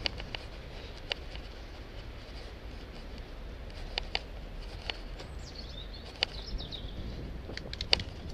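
Bicycle riding along a tarmac path, heard from a helmet camera: a steady low rumble of wind and tyres with scattered sharp clicks and rattles. A bird sings a short, wavering high phrase about five seconds in.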